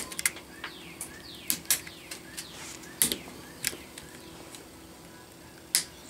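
Diagonal side cutters snipping through the copper windings of a vacuum cleaner motor's field coils: a run of sharp snaps at irregular intervals, the loudest at the start, about three seconds in and near the end.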